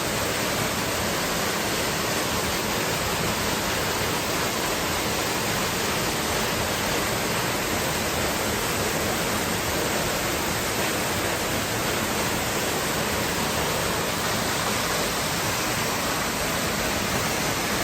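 Waterfall: steady rushing of falling water, an even unbroken noise.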